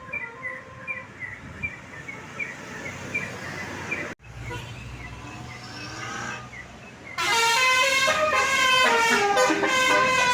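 Tour bus's Basuri telolet multi-tone horn sounding loudly from about seven seconds in, its tones stepping from note to note in a short tune. Before it, fainter repeated high chirps and road noise.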